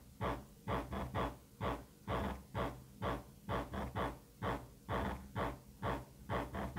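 Music with a steady beat, about two beats a second, played through a bare subwoofer driver fed from a low-pass filter board.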